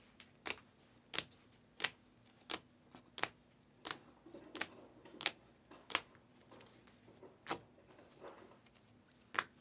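2023-24 Panini Donruss trading cards flipped one at a time from the front of a hand-held stack to the back. Each card gives a short, sharp click, about a dozen in all at a steady pace of roughly one every two-thirds of a second.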